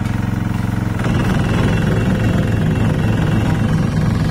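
Small engine of a walk-behind vibratory road roller running steadily, turning louder and rougher about a second in.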